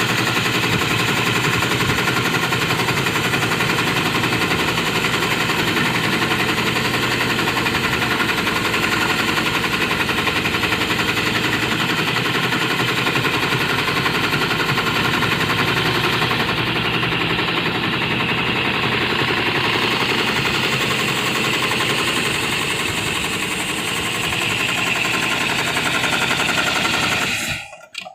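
Industrial seat belt sewing machine (AXIS 273-6040) running at speed with a rapid, steady clatter, stopping abruptly just before the end.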